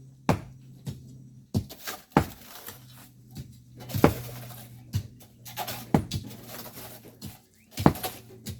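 Hand tools striking rock and volcanic sand: sharp, irregular strikes about once a second, over a steady low hum.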